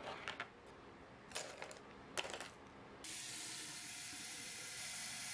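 A few short plastic clicks and rattles as a plastic palette lid is handled, then, about three seconds in, a tap starts running water steadily into a paint-stained glass jar in a sink.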